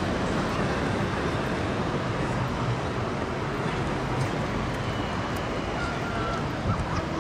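Steady street and traffic noise as a Combino tram runs off along the tracks and away into the distance. Faint, brief high tones come about five to six seconds in.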